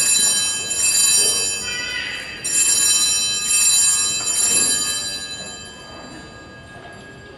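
Small altar bells rung in several shaken peals at the elevation of the host during the consecration, the ringing dying away after about five seconds.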